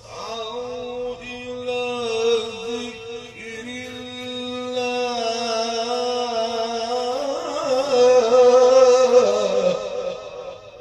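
A man's voice in melodic Quran recitation, drawing out a long phrase in held, sung notes. About seven seconds in the voice grows louder and more ornamented, then fades out near the end.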